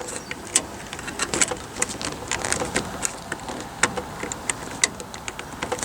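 Irregular light clicks and ticks of hands handling electrical wires and terminal parts while the line, neutral and ground wires are lined up for the terminal block, over a faint high steady whine.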